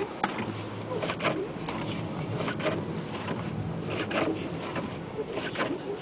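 Car windshield wipers sweeping across a snow-covered windshield, squeaking and knocking about every one and a half seconds, over the steady hum of the car's engine running, heard inside the cabin.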